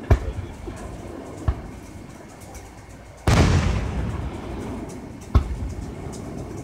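Aerial firework shells bursting at a distance: a sharp bang at the start, a smaller one about a second and a half in, a big boom about halfway that rumbles on for over a second, and another sharp bang near the end.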